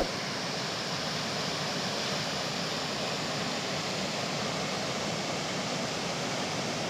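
Steady rushing water, an even noise with no change, with a brief click right at the start.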